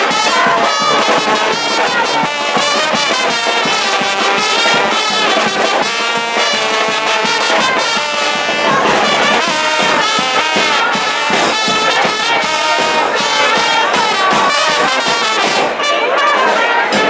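A charanga, a Spanish festive brass band, playing live: brass instruments carry the melody over a steady drum beat.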